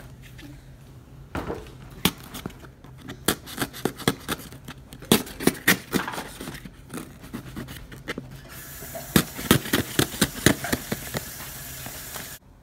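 Cardboard shipping box being handled and opened: irregular knocks, taps and scrapes, with a rasping hiss over the last few seconds, above a low steady hum.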